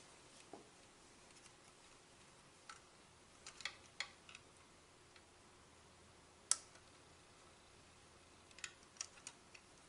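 Faint small plastic clicks as the ribbon-cable connector latch on a Keurig K90's main circuit board is worked open and the flat cable is pulled out. A little cluster of clicks comes about three to four seconds in, one sharper click at about six and a half seconds, and a few more near the end.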